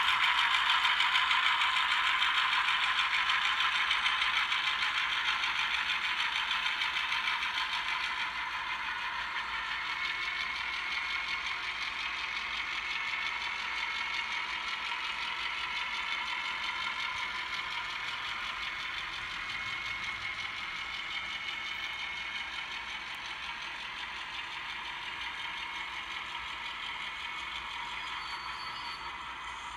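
Model train of a diesel locomotive and carriages running along the track: a steady whirring that fades slowly as the train moves off.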